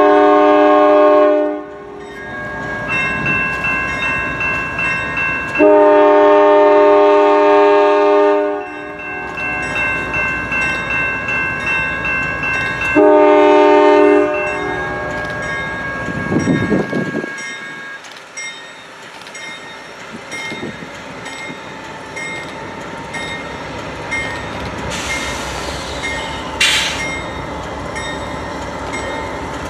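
Norfolk Southern GE Dash 9-44CW freight locomotive blowing its multi-chime air horn in long, long, short, long blasts, the pattern sounded for a grade crossing, the last long blast starting right at the end. Its bell rings rapidly between the blasts, over the rumble of the approaching train.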